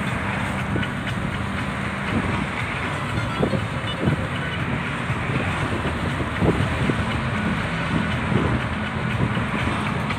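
Road noise inside a moving car: a steady rumble of tyres and engine, with a few short low thumps.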